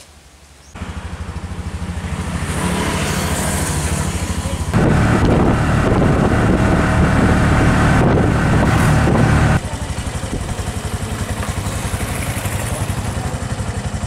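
Motorcycle engine of a Philippine tricycle running under way, heard from inside the passenger cab. It starts about a second in, with a steady, even firing beat, and gets louder for a stretch in the middle.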